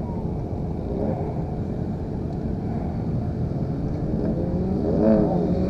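Several motorcycles lapping a track, their engines heard over a steady low rumble; near the end an engine's pitch rises and falls as a bike revs through.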